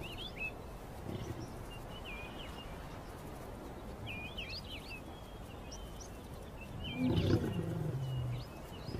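A lion growls once, about seven seconds in: a low call lasting about a second and a half that slides down in pitch. Small birds chirp in short bursts throughout.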